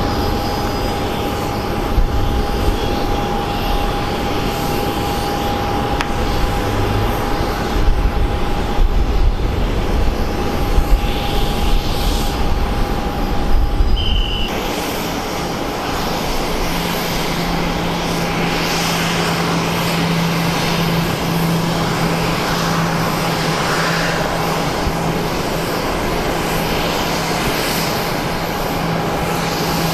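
Airliner engines running, a steady noise with a high whine throughout. About halfway through the sound changes abruptly: the deep rumble drops away and a steady low hum takes over.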